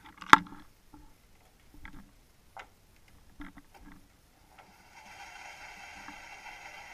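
Scattered knocks and clicks, one sharp and loud about a third of a second in and several softer ones after it, then a steady hum of several pitches starting about five seconds in.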